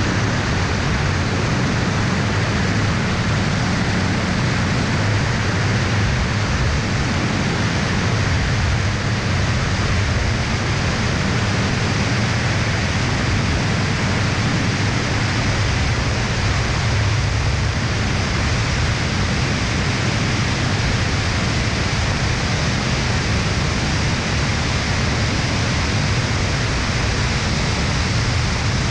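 Steady wind rush over a camera mounted outside an Aeroprakt A22 ultralight in flight, with a low engine and propeller drone underneath.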